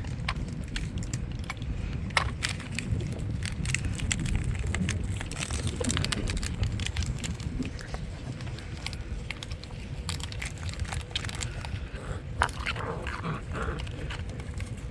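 Puppies chewing and tugging on home-made sock toys, a dense, irregular crackling of many small clicks like a fire. A brief pitched puppy whine comes near the end.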